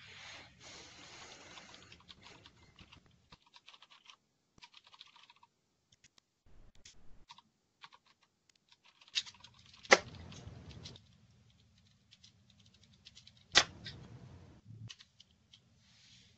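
Typing on a computer keyboard: irregular key clicks, with two much louder sharp knocks about ten and thirteen and a half seconds in.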